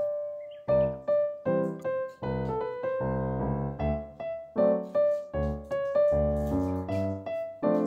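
Background piano music: a melody of separate struck notes over lower chords.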